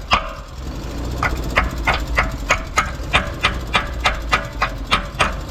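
Quick, even hammer strikes on steel, about three a second, pausing briefly near the start; they fit slag being chipped off a fresh weld bead. Under them a portable welder's engine runs steadily.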